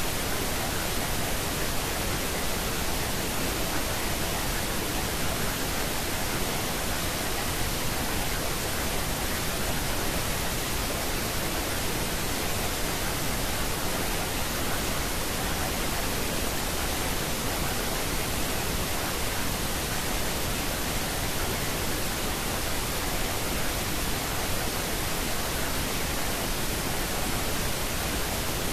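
Steady, unchanging noise hiss spread evenly from low to high pitches: the noise bed of a subliminal affirmation recording.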